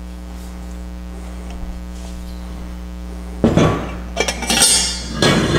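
Steady low electrical hum, then, from about three and a half seconds in, stainless steel motorcycle exhaust head pipes clanking and clinking against each other on a metal workbench as they are set down and picked up, several sharp metallic knocks in quick succession.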